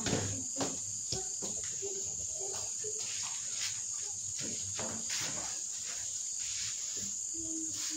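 Crickets trilling steadily in the background, with crinkling of a plastic food bag and a few light knocks on the table.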